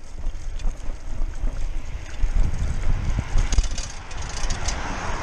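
Wind buffeting the microphone as a Lime bike is ridden, a steady low rumble mixed with rolling noise, with scattered light rattling clicks about three and a half seconds in and a swell of hiss near the end.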